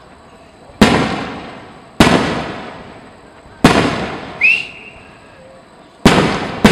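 Aerial firework shells bursting overhead: five sharp booms, each trailing off in a long rolling echo, the last two close together near the end. A brief high whistle sounds between the third and fourth booms.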